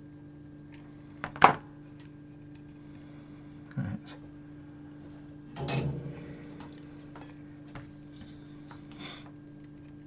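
Hands working at a workbench: a sharp click about one and a half seconds in, a duller knock near four seconds and a longer clatter around six seconds, with small ticks, over a steady low hum.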